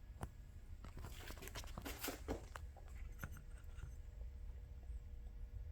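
Faint clicks and light scraping from handling the cable and its soaking container, closely spaced in the first couple of seconds and then dying away.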